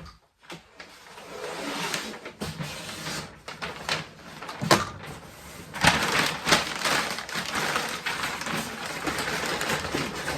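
Packing material rustling and crinkling as it is handled and tucked into the sides of a shipping box, with a few sharper knocks and scrapes about halfway through.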